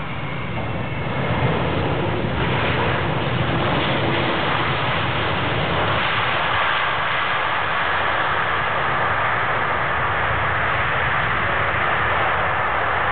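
Boeing 767-300ER airliner's jet engines as it comes in to land: a loud, steady rush that swells over the first second or two, with a whine falling in pitch at the start.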